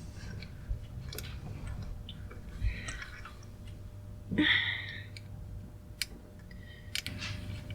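Light scattered clicks and handling noise as the steering wheel's mounting bolts are snugged up with a hand tool, with a short rustling burst about four and a half seconds in.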